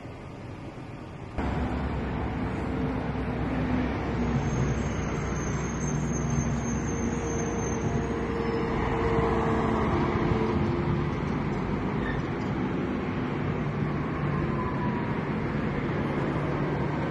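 Steady rumble of idling diesel semi trucks mixed with traffic noise. It comes in abruptly about a second and a half in, after a quieter stretch.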